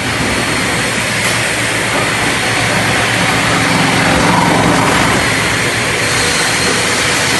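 Wood-processing industrial machinery running with a loud, steady roar.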